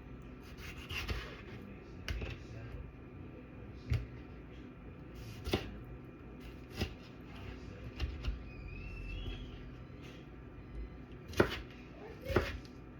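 Kitchen work sounds: about eight sharp knocks and clatters of cookware and utensils, irregularly spaced a second or more apart.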